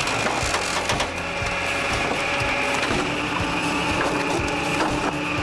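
Firewood processor at work: a steady machine hum with a constant high whine, under irregular knocks and cracks of wood being split and pieces tumbling.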